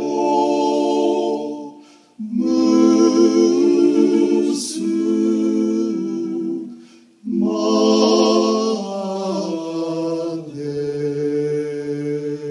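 Male vocal quartet singing a cappella in harmony: three sung phrases with short breaks between them, the last settling into a long held chord near the end.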